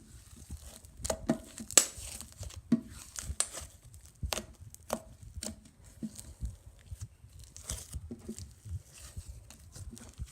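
Dough slime being squeezed and pulled apart by hand, giving irregular sticky crackles and tearing pops.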